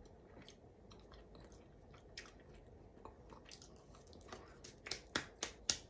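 Close-miked chewing of a soft, bready pretzel: faint at first, then a run of sharp wet mouth clicks about three a second near the end.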